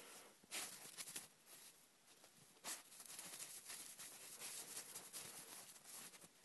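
Faint crunching and rustling of snow as a dachshund pushes its nose down into deep snow, in short scattered bursts.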